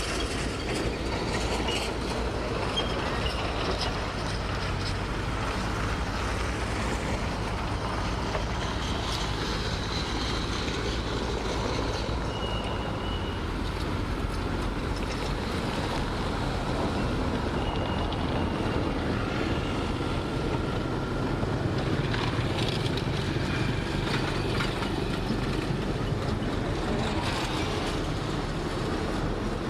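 Heavy diesel earthmoving machinery running steadily under load, with a couple of brief high squeaks about twelve and eighteen seconds in.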